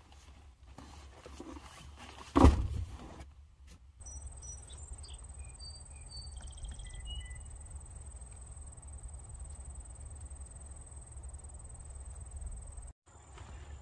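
Rustling as a backpack is handled at the open rear of an SUV, with one sharp thump about two and a half seconds in. Then open-air background: a steady low rumble, a thin steady high insect buzz and a few short bird chirps.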